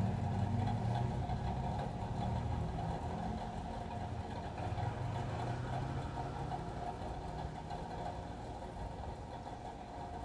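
A steady low mechanical hum like an idling engine, slowly fading.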